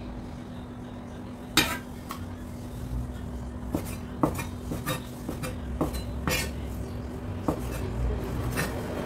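A large kitchen knife chopping raw chicken fillet on an end-grain wooden cutting board: irregularly spaced sharp knocks of the blade against the wood, the loudest about one and a half seconds in.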